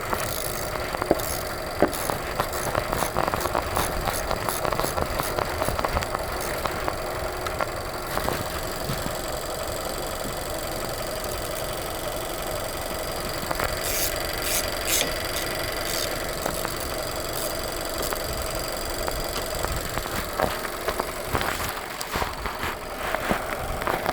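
Car engine idling steadily, with scattered light clicks and taps in the first several seconds and again about 14 seconds in.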